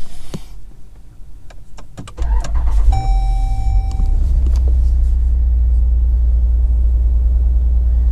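A Jeep Grand Cherokee SRT's 6.4-litre 392 HEMI V8 is started a couple of seconds in, on its first start after an oil change. It catches with a brief high tone, then settles into a steady, deep idle. A few clicks come before the start.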